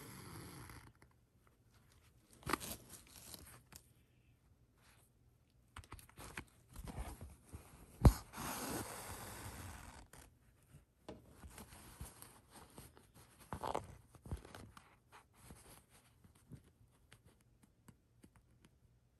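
Hand stitching through quilted fabric: thread being drawn through the cloth and the fabric handled, heard as intermittent rasping swishes, with a sharp click about eight seconds in that is the loudest sound.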